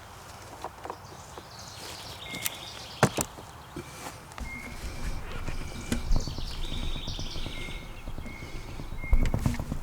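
Birds chirping and singing, repeated short calls and trills, with footsteps and a few sharp knocks or snaps, the loudest about three seconds in and near the end. No chainsaw is running.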